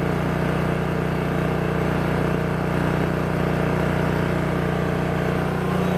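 A 7 kVA generator's engine running steadily under an electrical load of about 3,200 watts, with an even, unbroken hum.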